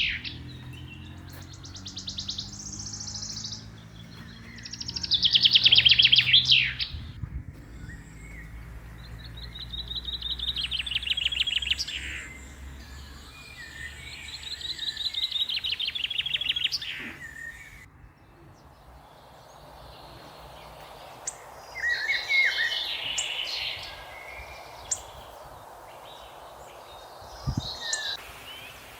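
Songbirds singing: a fast, rattling trill repeated over and over, one phrase every few seconds, then shorter varied chirps and calls near the end.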